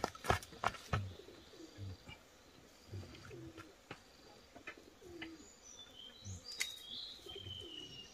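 Low, soft bird calls repeating about once a second, cooing or clucking. Near the end a higher bird whistle glides down. Sharp snaps and rustles come in the first second and now and then after, from tomato stems and vines being handled as fruit is picked.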